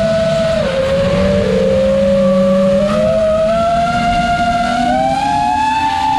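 Brushless motors and three-blade propellers of a 5-inch FPV quadcopter whining loudly, recorded on board. The pitch dips briefly under a second in, then climbs steadily as throttle is added, over a rush of air noise.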